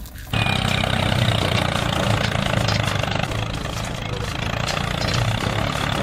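Engine of a tractor running steadily, with a low hum under a rough noisy layer; it cuts in abruptly about a third of a second in.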